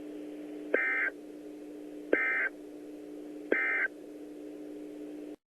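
Emergency Alert System end-of-message (EOM) signal: three short bursts of warbling data tones about a second and a half apart, marking the end of the tornado-warning alert, over a steady low hum. The audio cuts off suddenly near the end.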